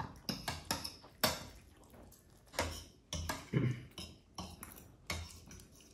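Forks and spoons clinking and scraping against ceramic bowls as people eat noodles, in irregular sharp clicks.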